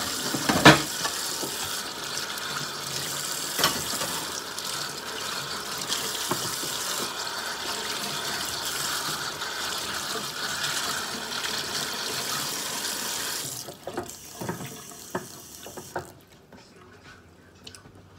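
Kitchen tap running into a stainless steel sink as dishes and hands are rinsed, with sharp knocks of a ceramic plate against the sink near the start. The water shuts off about three-quarters of the way through, followed by a few clatters as dishes are set down.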